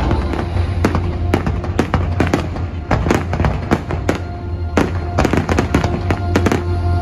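Aerial fireworks shells bursting in quick succession, a rapid irregular string of sharp bangs and crackles over steady music.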